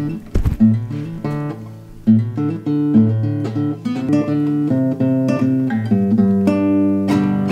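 Classical nylon-string acoustic guitar played live, a run of plucked and strummed chords that change every half second or so. A brief bump of handling noise comes right at the start.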